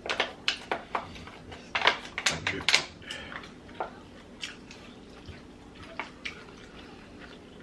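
Wet smacks and clicks of someone eating and handling sauce-covered seafood-boil food, coming thick for the first three seconds and then more sparsely.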